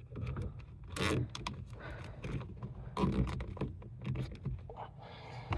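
Rustling and scraping of a car's wiring harness being handled and tied up under the dashboard, in a few irregular bursts, the loudest about a second in and about three seconds in.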